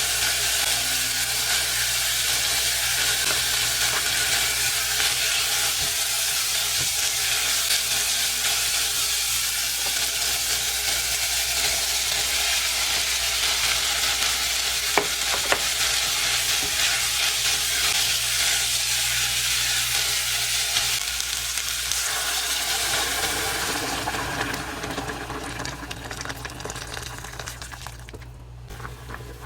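Food sizzling as it fries in a hot pan, with a couple of sharp utensil clicks about halfway through. The sizzle dies down over the last several seconds.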